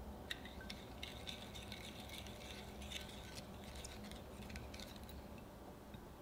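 Silicone spatula stirring warm water, instant coffee powder and sugar in a small glass bowl, with quick light clicks and scrapes of the spatula against the glass as the coffee dissolves. The clicking stops about five seconds in.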